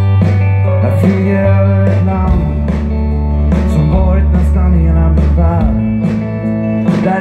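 Live rock band playing an instrumental break between verses: electric guitar over bass and drums, heard through a large outdoor PA.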